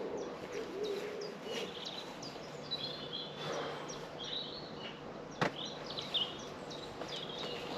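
Birds chirping in the background over steady outdoor noise, with a single sharp knock about five and a half seconds in.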